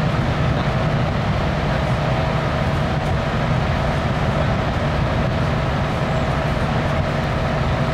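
A large engine running steadily at idle, a low even drone with a faint steady tone above it.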